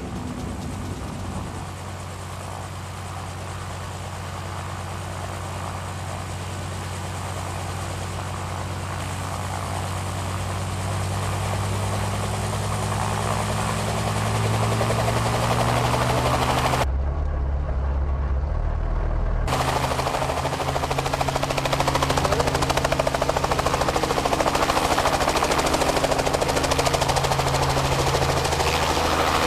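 Helicopter turbine and rotor spooling up: a steady engine-and-rotor drone rising in pitch and loudness over the first half, then running at a higher, steady pitch. For a couple of seconds just past the middle it turns to a muffled low rumble.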